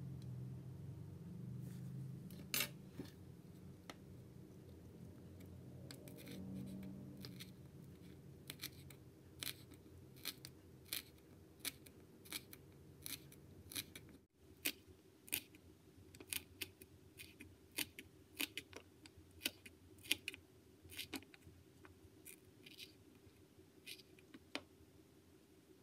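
Tiny knife chopping green onions on a miniature wooden cutting board: a steady series of sharp clicks, about one to two a second, as the blade cuts through the stalks onto the board. A low hum fades out over the first few seconds.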